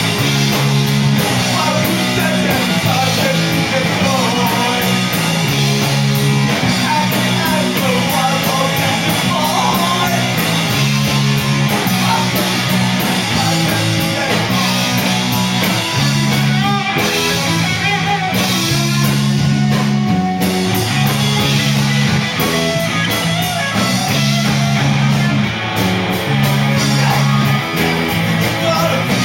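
A rock band playing live: guitar over a bass line that moves to a new note about every second, with cymbals ticking steadily throughout.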